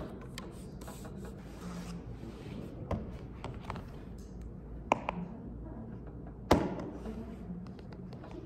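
Handling of a plastic food container on a desk: soft rubbing and scraping with a few sharp plastic clicks, the loudest about six and a half seconds in.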